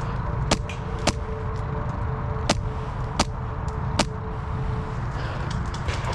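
Five sharp single shots from an HPA-powered airsoft M4, fired one at a time at irregular intervals over about four seconds.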